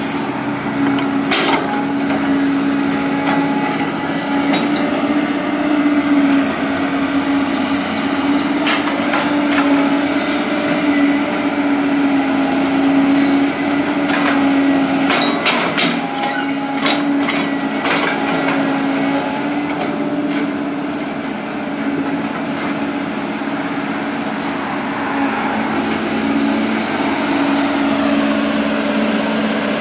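Excavator's diesel engine running at a steady pitch, with scattered knocks and clanks, mostly in the first two-thirds.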